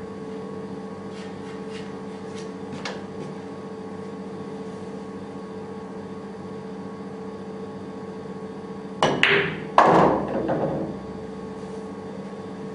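Billiard balls and cue striking during a shot: two sharp clicks a little under a second apart near the end, the second trailing off, over a steady background hum, with a few faint ticks early on.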